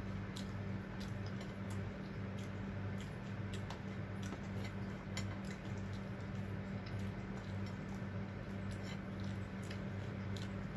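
Close-up eating sounds of a person chewing fried fish and rice: irregular sharp wet clicks and smacks, several a second at times, over a steady low electrical hum.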